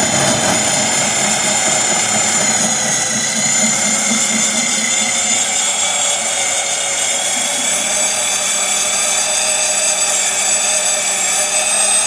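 Vevor 40H magnetic drill's motor running with a steady high whine as its 1-1/2-inch carbide-tipped annular cutter starts into thick steel under light feed pressure, the teeth just getting embedded in the cut.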